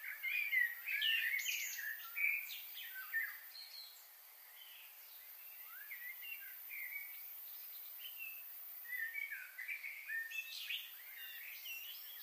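Birds chirping and calling in quick, overlapping short notes over a faint hiss, busiest at the start and again near the end.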